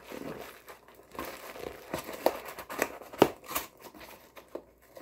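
A cardboard shipping box being opened by hand: packaging crinkling and tearing, with irregular sharp crackles.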